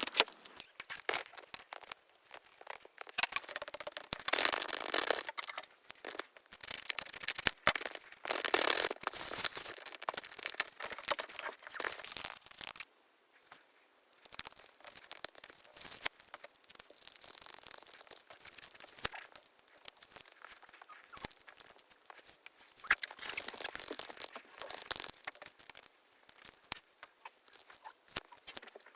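Paper crinkling and tearing in short bursts, with small taps and clicks, as a handmade paper blind bag is opened and its paper pieces handled. The sounds stop briefly about 13 seconds in.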